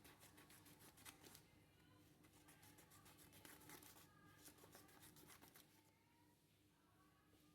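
Near silence, with faint rapid clicking and scraping that fades out about six seconds in.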